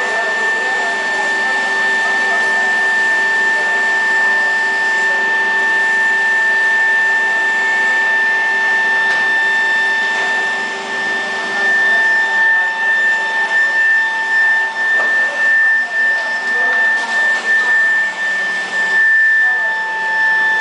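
175 kW, 300 kg induction melting furnace running at power: a loud, steady, high-pitched electrical whine over a rushing hiss. The level starts to flutter unevenly about halfway through.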